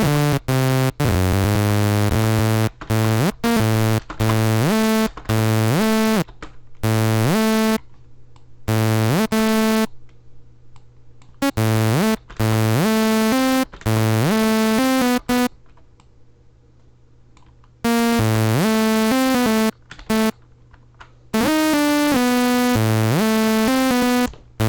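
Monophonic synthesizer lead with a bright, buzzy tone playing a fast, choppy melody in short notes, several of them sliding up in pitch into the next note (legato glide). The playing stops for about two seconds past the middle, then resumes.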